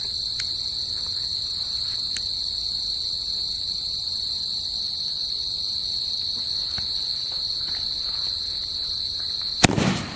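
Crickets chirring in a steady high drone. About nine and a half seconds in, a sudden loud crack as a Cock Brand 'seven sound' multi-shot firework fires its first shot.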